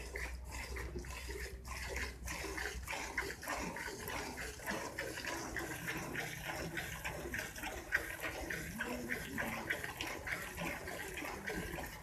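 Water running and splashing, with many small irregular splashes.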